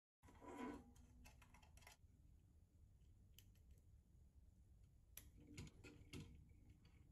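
Faint handling sounds of small plastic parts: a brief rustle near the start, then scattered light clicks and taps as hands move a plastic turntable base and circuit board and push a small wire connector into place, over a low room hum.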